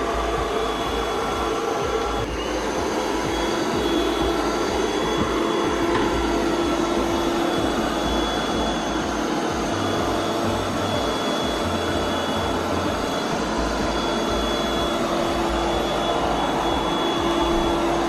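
Tikom G8000 Pro robot vacuum running in edge-cleaning mode on a hardwood floor: a steady motor drone with a faint high whine.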